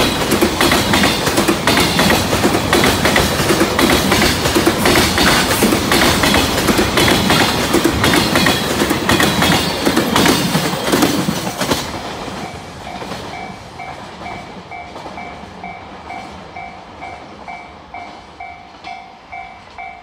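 Container freight train wagons rumbling past, wheels clattering over rail joints. About twelve seconds in, the noise falls away and a level crossing warning bell is left ringing in an even ding-ding, about twice a second.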